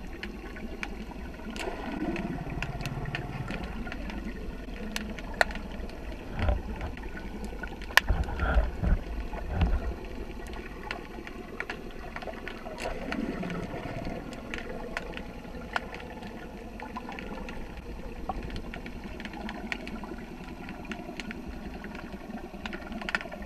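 Muffled underwater sound picked up by a camera in its housing: a steady low rumble of moving water with scattered clicks, and a few low thumps between about six and ten seconds in. Twice, about two seconds in and about thirteen seconds in, a low tone slides down in pitch.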